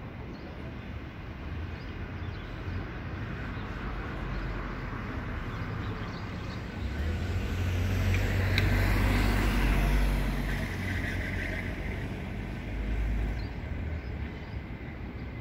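A car drives past on the street over a steady hum of traffic. Its low engine rumble swells to its loudest about eight to ten seconds in and fades, then rises briefly again near the end.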